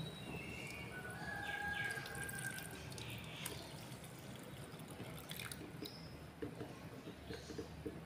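Nitric acid solution pouring faintly from a glass beaker into a paper filter. Near the end the filtrate drips into the jar below in quick, regular drops.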